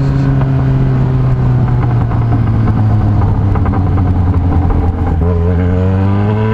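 Yamaha XJ6's inline-four engine running through a loud straight-through exhaust pipe while riding: the engine note slowly falls for about five seconds as the bike eases off, then rises again as it accelerates.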